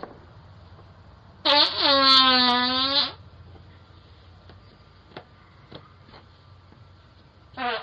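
A loud, drawn-out, pitched fart lasting about a second and a half, picked up by a doorbell camera's microphone.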